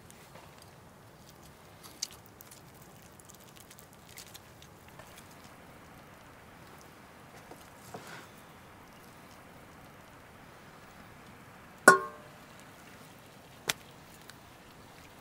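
Cleaver cutting meat on a wooden chopping block: a few scattered sharp knocks, the loudest just before twelve seconds in, ringing briefly like struck metal, and another shortly after.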